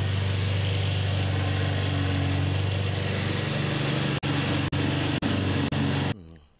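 Lawnmower engine running at a steady idle. Near the end it cuts out in four brief gaps about half a second apart, then stops.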